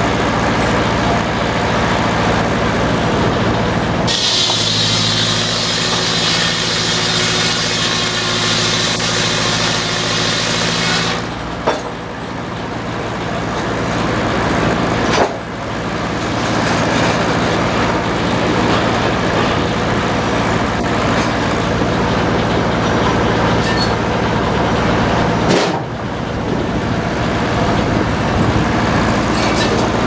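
Antique belt-driven circular sawmill running steadily, the big blade biting into a log from about four seconds in and cutting with a loud high whine until about eleven seconds in, then spinning free. A few sharp knocks follow, as boards and the carriage are handled.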